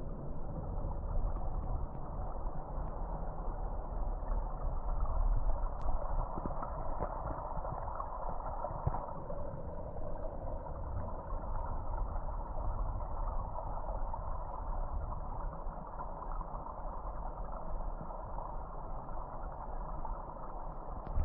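Steady, muffled rumble of a running vehicle engine with road noise.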